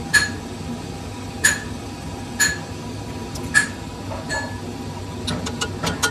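Metal clinking as a ball bearing is handled in the bore of a cast-iron multi-groove V-belt pulley: four sharp, ringing clinks about a second apart, then a quick run of light metallic ticks near the end as a small steel tool works at the bearing.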